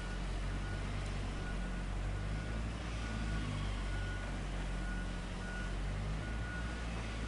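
Heavy vehicle engine running steadily, with a reversing alarm beeping a little faster than once a second.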